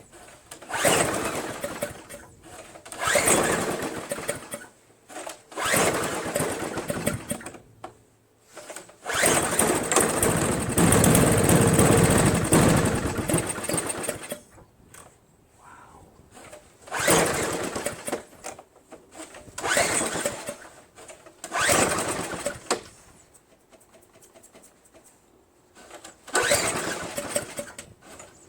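Craftsman single-stage snowblower's four-stroke engine being started again and again: several short bursts of firing, then it catches and runs for about five seconds before dying, and more brief bursts near the end. It only kind of starts, its carburetor and fuel line fouled by water that got into the gas tank.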